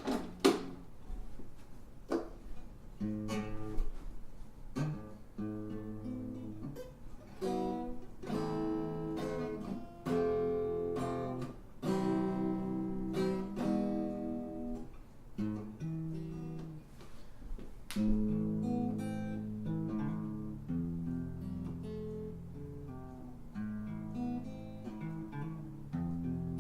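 Acoustic guitar being played, strummed and picked chords that change about every second or two. The player calls the guitar out of tune.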